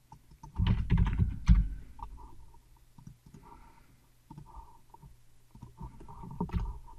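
Computer keyboard typing and mouse clicks. A loud low rumbling thump comes about a second in.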